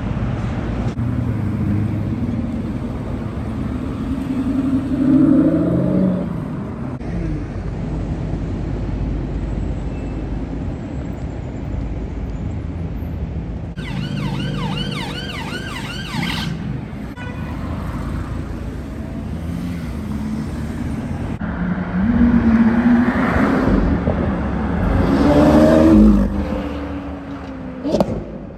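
Busy city traffic noise with car engines. An engine revs up about five seconds in, a siren wails for about two seconds midway, and a loud supercar engine revs and accelerates twice near the end.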